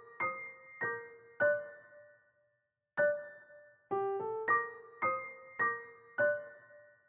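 Background music: a slow melody of single piano notes, each struck and left to ring away, about two a second, with a pause of about a second near the middle.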